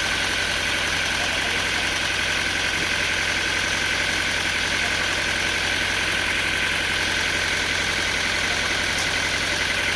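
Sawmill machinery running steadily: an engine drone with a steady high whine over it.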